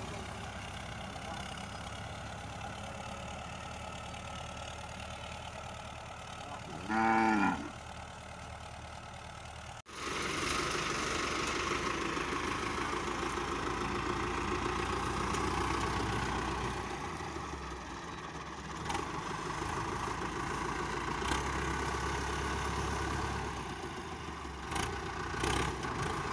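Iseki 7020A tractor engine running, with a cow mooing once, loudly, about seven seconds in. About ten seconds in the engine becomes louder and closer, with a few light knocks near the end.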